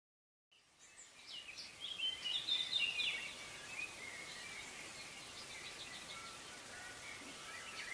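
Birds chirping over a steady background hiss, fading in from silence. The chirping is busiest in the first few seconds, then thins out.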